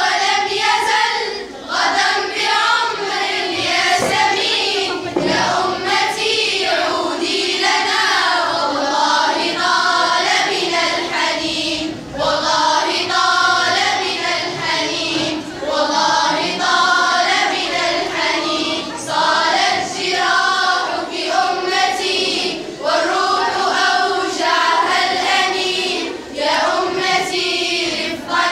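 A group of teenage girls singing an Arabic nasheed together as a choir.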